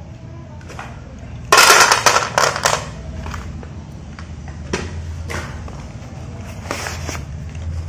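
Paper packets of slate pencils being handled: a loud burst of rustling and clattering starts about one and a half seconds in and lasts about a second, followed by a few scattered light taps.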